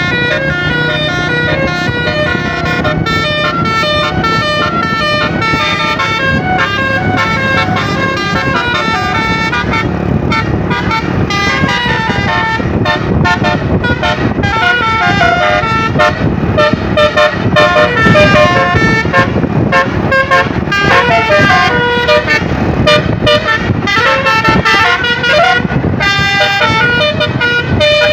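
Basuri 'telolet' musical horn blasting a continuous run of melodic notes that step up and down in pitch, getting louder past the halfway point.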